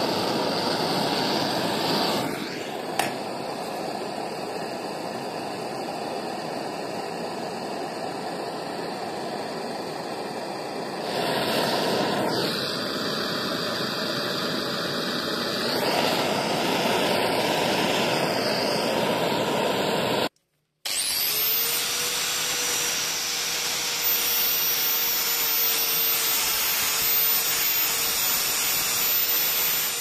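Handheld gas torch burning with a steady rushing hiss while heating brass plates to solder brass bosses onto them. The sound breaks off briefly about two-thirds through and comes back with a faint steady tone on top.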